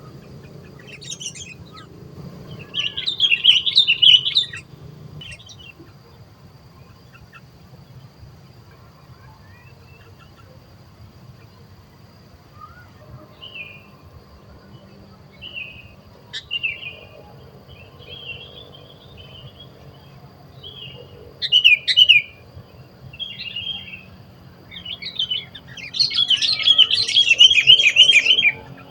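Sooty-headed bulbuls calling: scattered short chirps with loud bursts of fast chattering song, the loudest at about 3 seconds in, again at about 22 seconds, and a longer burst near the end.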